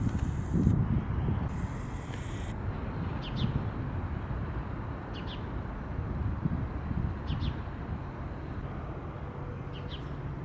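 Outdoor ambience: a steady low rumble with a small bird's short, high double chirp repeating about every two seconds.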